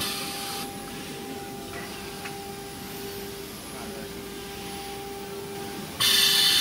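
Automatic-loading CNC router running: a steady machine hum with a steady drone, and a faint high whine that rises and falls about halfway through. A loud rushing hiss cuts in suddenly near the end.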